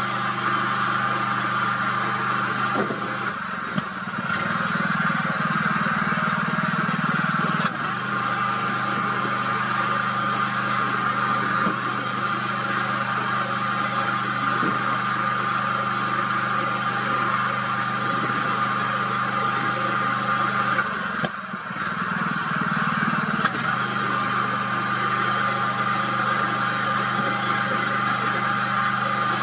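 A steady engine hum, as of an engine idling, holding one pitch throughout and dipping briefly twice.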